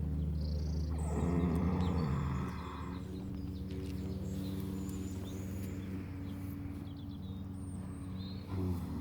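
A horse lying down, snoring: a low, rattling drone, with a louder, breathier stretch about a second in.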